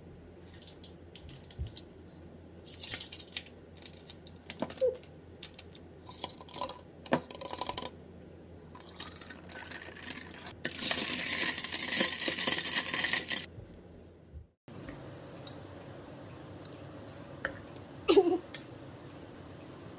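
Water poured from a plastic bottle into a glass with ice: a steady splashing fill lasting about three seconds, after a run of light clinks and taps. Near the end, a short clink.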